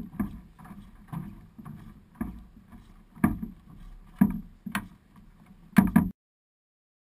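Kayak being paddled: a run of short splashy knocks from the paddle strokes, about one or two a second, that cuts off abruptly about six seconds in.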